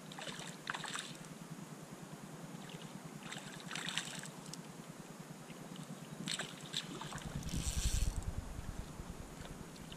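About four short splashes in shallow water, the last and loudest near the end: a hooked whiting thrashing at the surface as it is brought in on the line.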